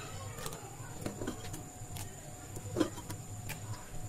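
A steel ladle lightly tapping and clinking as thick kheer is ladled from an aluminium pressure cooker into a glass bowl: a handful of faint taps, the clearest a little before three seconds in, over a low steady hum.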